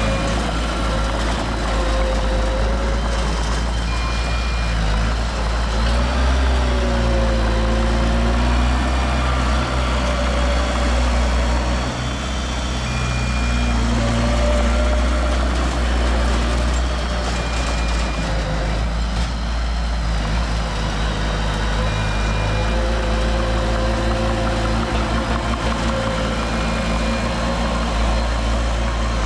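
Heavy diesel machinery running steadily, its engine note rising and falling as it works. A short high beep repeats every four to five seconds.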